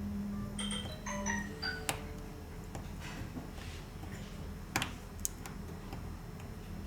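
A short electronic chime of several quick notes at changing pitches, over a low steady hum, followed a few seconds later by two sharp clicks half a second apart.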